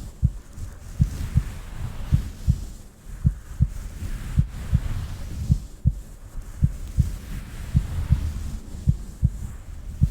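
Slow heartbeat: paired lub-dub thumps, a little under one pair a second, over a low rumble.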